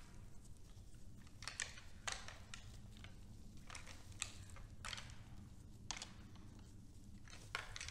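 Faint, irregular crunches and clicks, about one a second, from a red deer herd moving about and feeding on snow, over a steady low hum.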